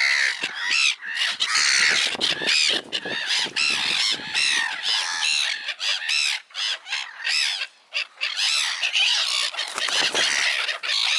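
A flock of birds calling close by while being fed, many short arched calls overlapping almost without pause.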